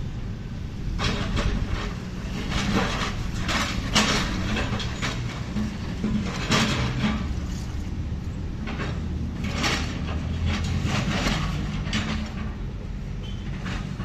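Caterpillar backhoe loader's diesel engine running steadily, with several rough spells of scraping and clattering as the bucket works the broken concrete rubble.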